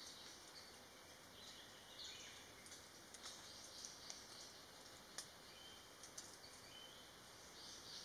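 Near silence: faint forest ambience, a soft hiss with a few light ticks.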